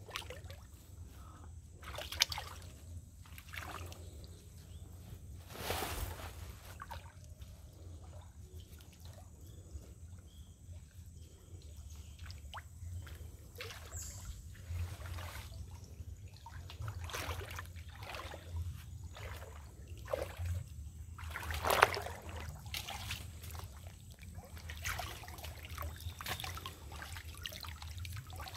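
Swamp water splashing and trickling: small irregular drips and sloshes, with a louder splash just over two seconds in and the loudest one about three-quarters of the way through.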